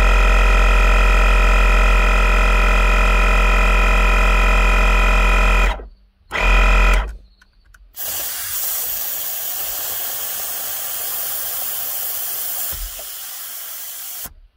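Air Lift onboard air compressor for the airbag suspension running with a loud, steady electric hum, cut off about six seconds in, briefly restarted, then stopped. After that comes a steady hiss of air in the airbag system, easing slightly near the end.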